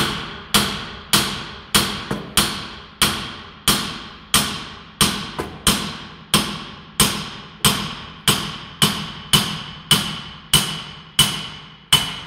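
Club hammer striking the steel steering knuckle of a Citroen C15 in a steady rhythm, about one and a half blows a second, each blow ringing briefly like struck metal. The blows are knocking the knuckle down off the front suspension strut.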